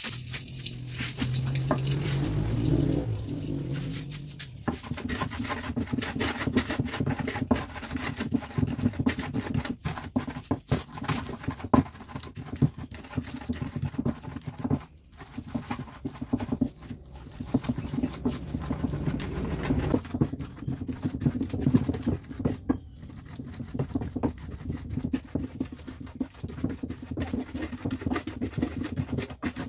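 Bare hand squeezing and mixing chopped chili, shallot and tomato in an earthenware mortar, with many small irregular rubbing and scraping sounds against the clay over a steady low hum.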